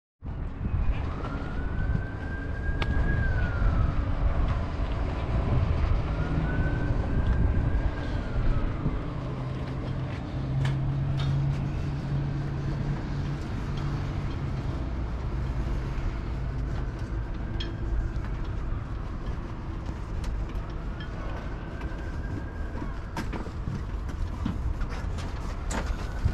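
A siren wailing, its pitch slowly rising and falling again and again, over a steady low rumble.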